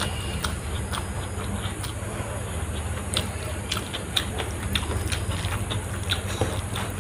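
Close-up eating sounds: fingers squishing and mixing rice with crumbled omelette on a plastic tray, and mouth-full chewing, making many small irregular clicks and smacks. A steady low hum runs underneath.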